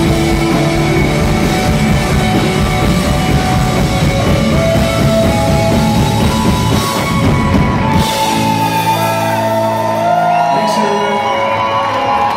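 Live rock band playing at full volume with drums and electric guitar; about eight seconds in the full band drops away to a held, ringing chord, with high voices sliding up and down over it.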